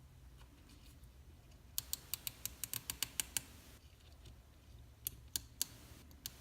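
Nylon zip tie being pulled tight through its ratchet lock: a quick run of about ten small plastic clicks, then three more a couple of seconds later.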